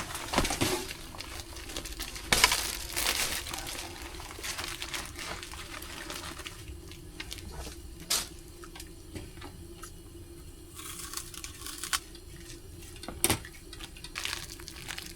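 Cooking and handling noises: rustling, scattered knocks and clicks, and possibly water, over a steady hum.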